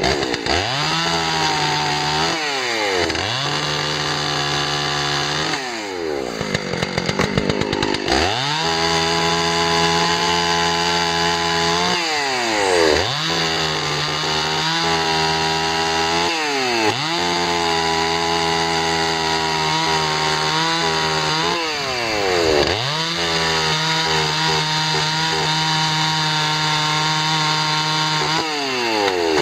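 Dolmar 116 SI two-stroke chainsaw running at high revs as it cuts wood. The revs dip and climb back again and again between cuts. About six seconds in it drops to a low, uneven idle for a couple of seconds before revving up again.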